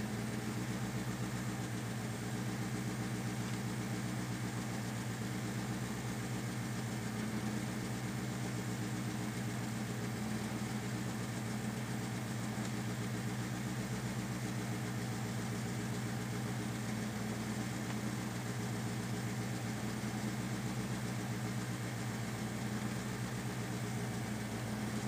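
Rally car's engine idling steadily, heard from inside the cabin with the car standing still.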